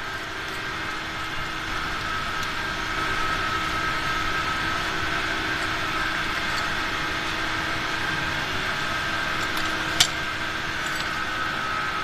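Core-drilling rig's machinery running steadily, a constant drone with a high whine over it. A single sharp click about ten seconds in.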